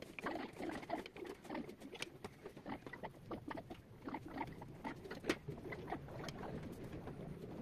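Pen scratching across paper in quick, irregular strokes while drawing lines, with a sharper tap a little after five seconds in.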